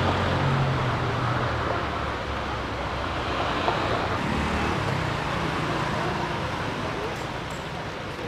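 Road traffic: a passing vehicle's low engine hum fades away in the first second or so, leaving a steady wash of traffic noise that slowly gets quieter.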